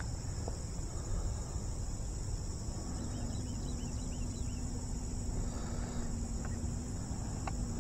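Steady, high-pitched insect chorus, a continuous even buzz, over a low steady rumble.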